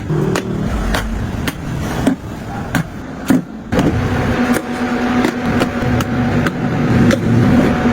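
Background music with a steady beat, about one and a half beats a second, and held low notes coming in about halfway through.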